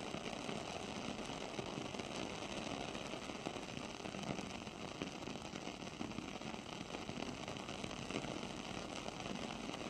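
Wooden-wick candle burning with a steady, fine crackling like a small fireplace.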